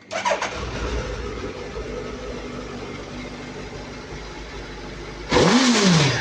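Suzuki Hayabusa inline-four on its stock exhaust starting up and settling into a steady idle, then one sharp throttle blip a little past five seconds in, the revs rising and falling back over about a second.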